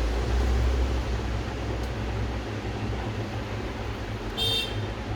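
Steady background noise with a low hum, like a fan or distant traffic. A brief high-pitched squeak or beep comes about four and a half seconds in.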